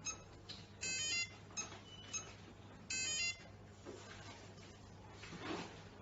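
An electronic cabinet lock sounds a short beep jingle of several quick notes twice, about two seconds apart, with faint clicks and handling noise around it.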